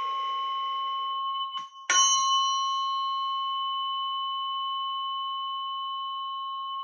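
A struck bell ringing with a long, steady, slowly fading tone. Shortly before two seconds in the ring is cut off briefly, the bell is struck again, and it rings on.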